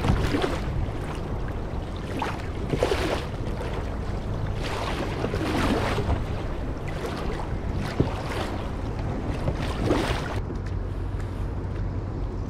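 Sea water washing against a fishing kayak's hull in surges every two to three seconds, over a steady low rumble of wind on the microphone, with one sharp knock about eight seconds in.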